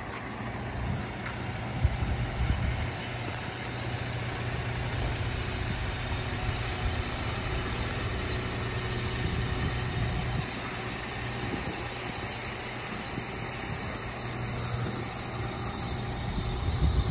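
Rear-mounted diesel engine of a Neoplan Cityliner coach idling steadily, a constant low hum, with wind buffeting the microphone now and then.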